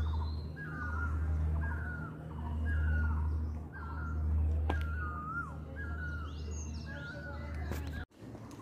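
Great barbet (nyauli) calling over and over, a short falling, wavering note about once a second, heard under a low rumble.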